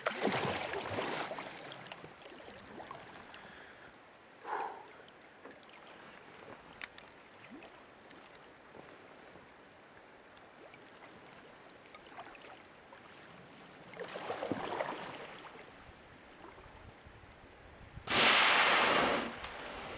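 A humpback whale's blow near the end: one loud, rushing exhalation lasting about a second and a half, the loudest sound here. Before it there is only quiet water with a few softer rushes.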